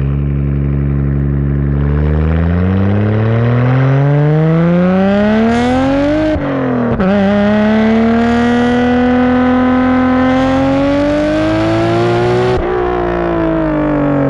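Nissan Skyline GT-R R33's twin-turbo RB26 straight-six heard through a Tomei titanium exhaust, recorded right at the tailpipe while driving. The revs climb under acceleration, drop sharply with an upshift about six seconds in, climb again and hold, then fall away as the throttle is lifted near the end.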